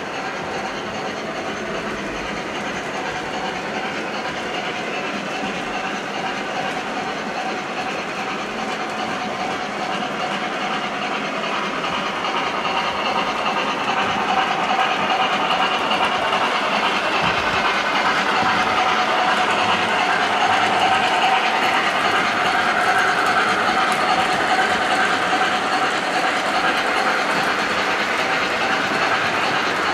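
MTH Premier O gauge Heavy Pacific steam locomotive and a long train of loaded military flat cars running on three-rail track: a steady rolling rattle of wheels on rail, growing louder from about twelve seconds in.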